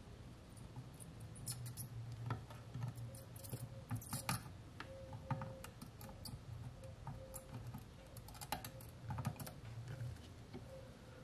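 Light, irregular clicks and taps of metal tweezers and a soldering iron tip on a circuit board while a small EEPROM chip is desoldered, over a faint steady hum.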